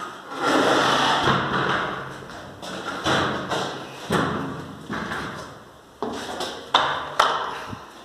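Homemade wooden pallet platform on caster wheels being tried out under load: a series of about six knocks and thumps, most followed by a rumbling stretch of up to a second that fades out.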